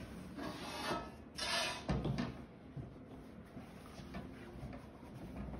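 Cloth rustling and swishing as a fabric sash is pulled and wrapped around a mannequin, two swishes in the first two seconds, then a soft thump about two seconds in and lighter rustles after.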